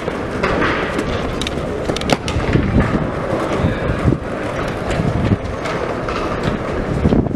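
Outdoor street noise while walking: a steady low rumble on the microphone with scattered clicks and knocks.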